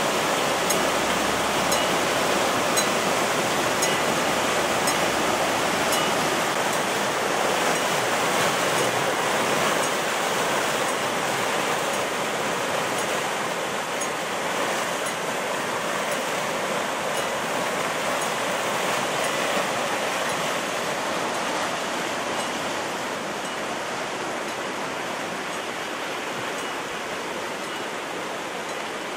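Floodwater rushing in a muddy, turbulent torrent: a dense, steady rush of water that grows gradually quieter over the second half.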